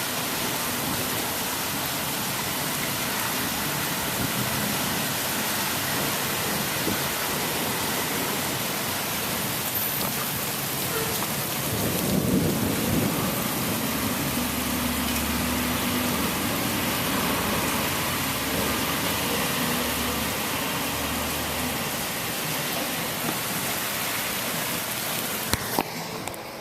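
Steady rain from a thunderstorm. About halfway through, a low rumble of thunder rises and rolls on for several seconds before fading.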